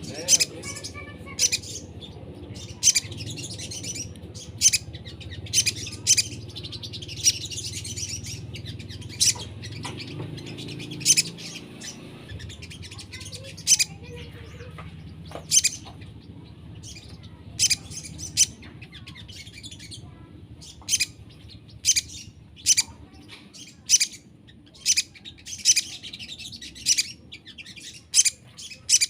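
A small songbird calling in short, sharp, high chirps, repeated about once a second, over a low steady hum.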